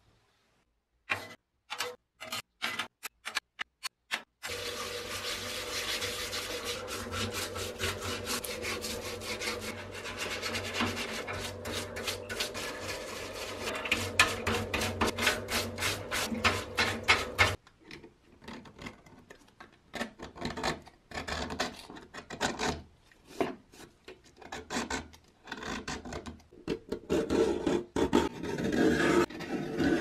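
Hand cleaning of rusty door-lock parts. First come a few short scraping strokes. Then a stiff brush scrubs steadily in a parts washer over a steady pump hum, which stops about 17 seconds in. Last come irregular strokes of a blade scraping flaking paint off the lock case.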